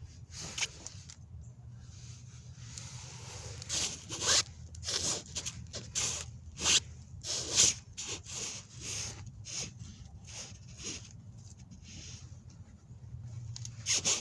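A shirt's fabric rustling and rubbing in many short, irregular scrapes as it is pulled and worked onto a cat, thickest from about four seconds in.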